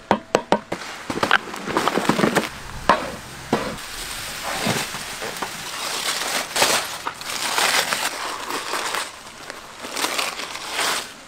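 A hammer knocking on a hard baked clay crust a few times in quick succession at the start. Then aluminium foil crinkling and tearing as it is pulled off a cooked whole mutton, with the browned butter-paper wrapping crackling underneath.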